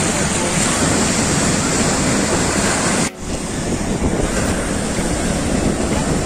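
Ocean surf breaking and washing up a sandy beach, with wind buffeting the microphone. The sound drops out for a moment about three seconds in, then the surf and wind carry on.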